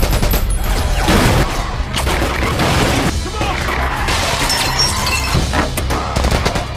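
Action-film gunfight sound mix: shattering glass, crashes and gunfire over a music score.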